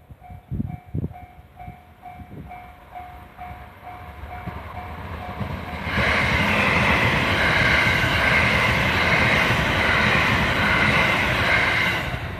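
Japanese level-crossing warning bell clanging about twice a second, then a train passing over the crossing from about six seconds in for some six seconds, loud enough to drown out the bell.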